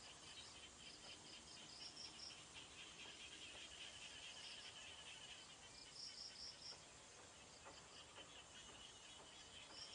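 Faint insect chirping: short high chirps in quick groups of four or five, recurring every few seconds over a steadier high trill.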